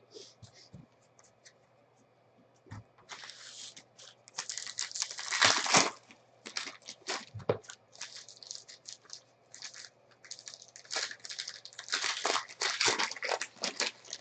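Trading card pack wrappers being torn open and crinkled, with cards rustling; quiet for about the first three seconds, then a run of irregular tearing and crinkling, loudest about halfway through.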